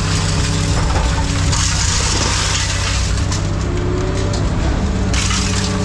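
Engine of a heavy yard machine running steadily, with two bouts of scraping and crunching as scrap metal and dirt are scooped up.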